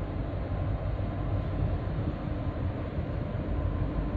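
Steady low rumble of the 8,600-TEU container ship Budapest Express's engines and machinery as it moves past close by, with a faint steady hum over it.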